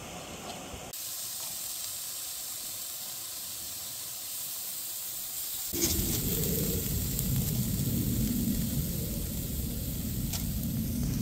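Slices of Canadian bacon sizzling and hissing in a hot steel skillet. About six seconds in a steady low rumble joins the frying hiss and continues.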